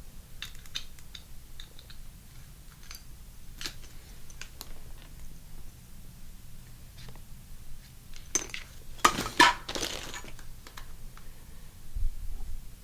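Small plastic toy-kit parts clicking and tapping as they are handled and fitted together, with a burst of louder clatter about nine seconds in and a low thump near the end.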